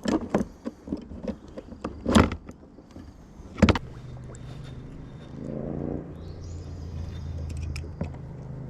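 Three sharp knocks, then from about four seconds in a steady low motor hum.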